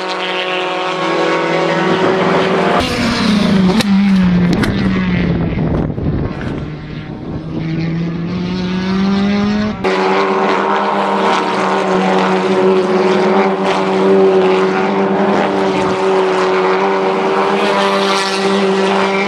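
Engines of TCR touring cars running at racing speed on the circuit, a steady, loud drone from trackside. The pitch falls once, about three to five seconds in, and the sound changes abruptly twice, near three and ten seconds in.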